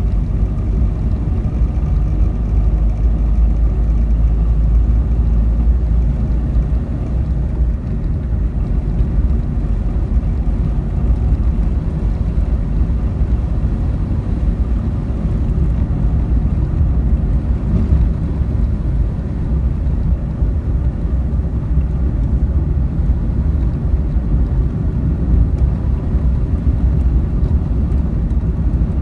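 Car on the move: a steady, loud low rumble of engine and road noise.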